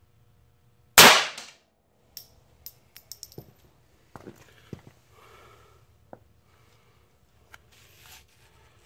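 A single shot from a Phoenix Arms HP22A .22 LR pistol firing a CCI standard-velocity 40-grain round, about a second in, with a short ring-out. Faint scattered clicks and knocks follow.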